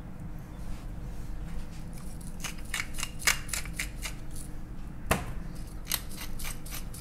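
Salt and pepper sprinkled by hand onto a scored whole snapper on a wooden cutting board. From about two seconds in, the grains land as a scatter of fine, crisp ticks, with one louder knock about five seconds in.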